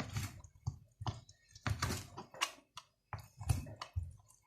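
A sharp knife slicing raw beef tripe into thin pieces: a run of short, irregular cuts and taps.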